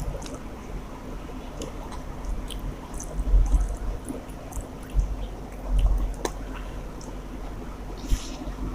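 Close-up wet chewing and squishing of a mouthful of rice and chicken curry, with many small mouth clicks and a few soft low thumps.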